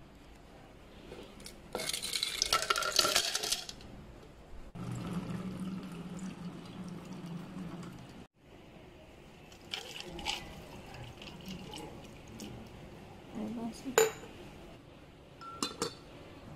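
Ice cubes clattering and clinking in a drinking glass, then water pouring from a dispenser spout into the iced glass. A few sharp glass clinks and knocks on a stone countertop follow as glasses and a plastic dripper cup are handled, the loudest clink coming near the end.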